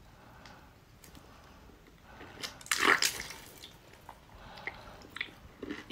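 Wet mouth sounds of biting and sucking on a whole geoduck's siphon, with the loudest wet burst about three seconds in, then smaller clicks of chewing.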